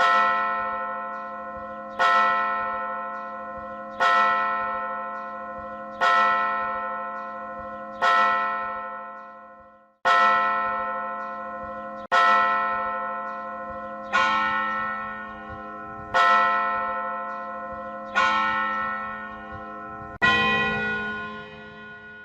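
A church bell tolling slowly: eleven strikes about two seconds apart, each ringing out and fading before the next, the last one dying away at the end.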